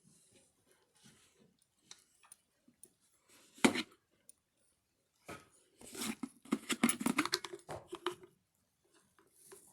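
Hard objects being handled: one sharp knock about a third of the way in, then about two seconds of rapid clattering and clicking.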